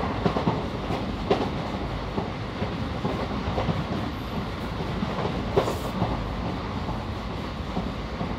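Moving Indian Railways train running steadily with a continuous rumble, and a few sharp clicks of the wheels crossing rail joints.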